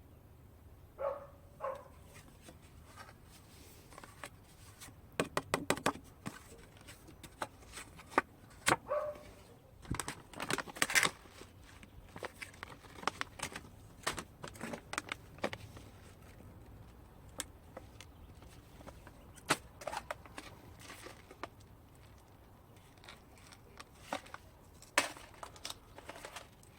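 Scattered sharp clicks and small handling knocks, with a quick run of about seven clicks around five seconds in.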